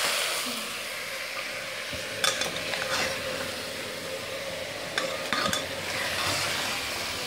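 Mutton frying in oil in a pressure cooker with a steady sizzle, while a spoon stirs it, scraping and knocking against the pot a few times.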